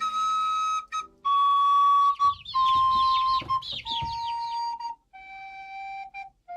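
A flute-like wind instrument plays a slow melody of long held notes, each a step lower than the last. Quick chirping warbles join in over the middle notes.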